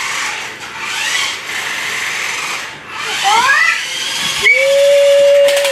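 A remote-control toy motorcycle's small electric motor whirring with a steady hiss. About three seconds in, a few quick rising whistle-like glides are heard. From about 4.4 s a high note is held steady for about a second and then starts to slide down at the very end.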